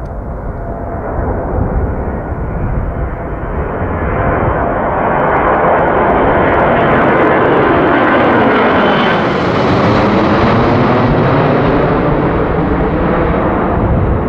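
Boeing C-17 Globemaster III's four Pratt & Whitney F117 turbofans at climb power on departure. The jet noise builds steadily, is loudest and brightest as the aircraft passes overhead about eight to ten seconds in with a sweeping, phasing sound, then eases a little as it climbs away.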